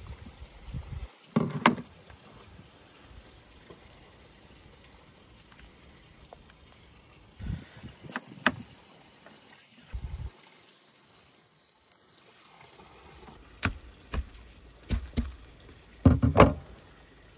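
Hands working coarse salt into a raw whole lamb carcass on a wooden board, with a knife stabbing slits into the meat: scattered short knocks and rustles, several close together near the end.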